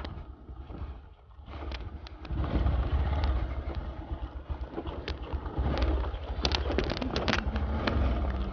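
Motorcycle ridden over a rocky off-road trail: a low engine and wind rumble, with repeated rattling and knocking as the bike jolts over stones. It is quieter about a second in and busier after that.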